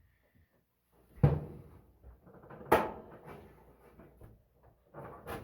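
Samsung dryer's door and sheet-metal front being handled: two sharp knocks about a second and a half apart, with light rattling between them and further knocks near the end.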